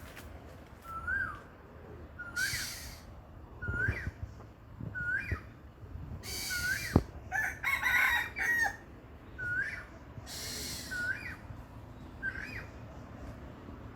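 Black-naped oriole calling: short hooked notes repeated about once a second, with three longer harsh, scratchy calls between them and a quick flurry of notes near the middle.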